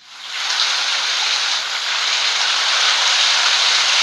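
Steady heavy rainfall, an even hiss that fades in over the first half second and then holds level.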